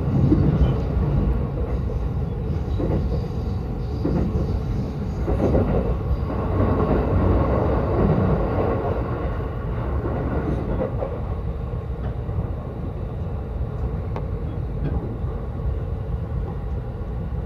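Yokosuka Line commuter train running between stations, heard from inside the carriage as a steady low rumble, a little louder and noisier through the middle.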